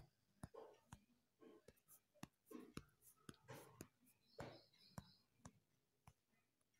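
Near silence: faint room tone with scattered soft clicks and faint whisper-like voice sounds.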